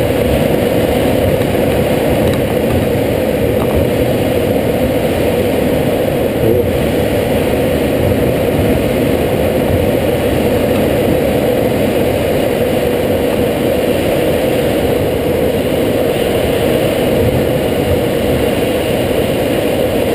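Steady in-flight noise inside a glider cockpit: air rushing over the canopy with a constant drone, unchanging throughout.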